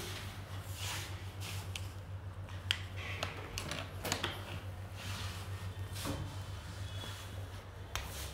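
Whiteboard marker scratching and tapping on the board in short strokes, with a few sharp clicks, over a steady low hum.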